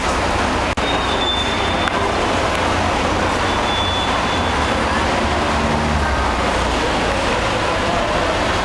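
Steady city street traffic noise, with the low rumble of a city bus and cars running close by. Two short, faint high squeals come through about a second and about four seconds in.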